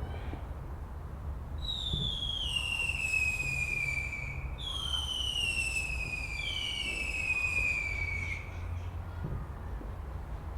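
Whistling fireworks: three long, shrill whistles, each falling slowly in pitch over about three seconds, the first starting about one and a half seconds in and the next two overlapping it, over a steady low rumble.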